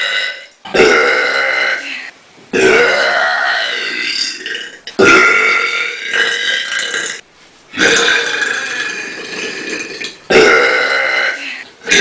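A person belching loudly, five long burps one after another, each starting abruptly and trailing off over a second or two.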